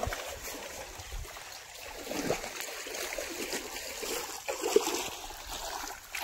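Shallow, muddy river water trickling and running, with one short sharp click about three-quarters of the way through.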